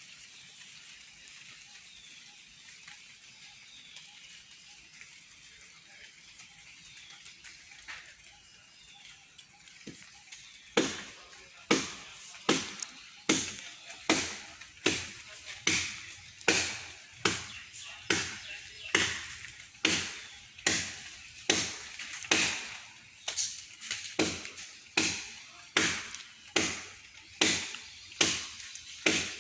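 Hand chopping into a standing tree trunk with a blade: sharp, evenly paced strokes, a little more than one a second, each with a short ringing tail, starting about eleven seconds in after a quiet stretch of faint outdoor background.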